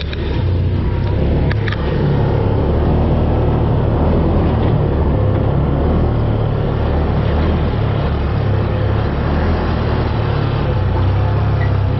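UTV engine running steadily under load as the side-by-side drives along a dirt trail, a constant low drone with the rush of the open cab over it.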